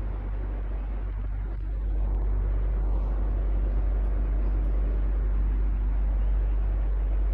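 Electric fan running steadily: an even rush of air over a deep, constant hum, growing a little louder about two seconds in.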